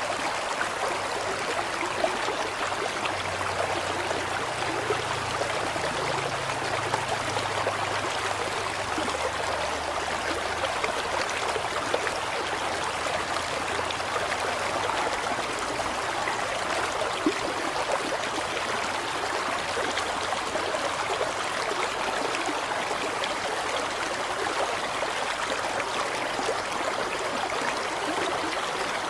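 Steady rushing noise like running water, even and unbroken, with a few faint ticks.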